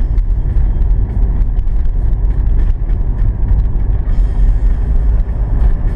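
A car driving at highway speed, with a steady, loud low rumble of road and engine noise.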